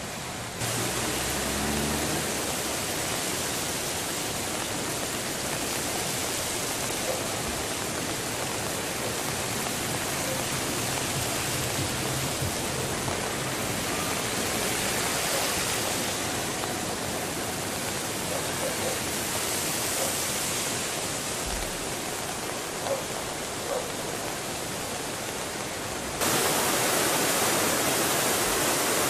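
Steady rushing noise of floodwater and rain. About three-quarters of the way through it jumps louder, with the rush of a flood-swollen river in spate.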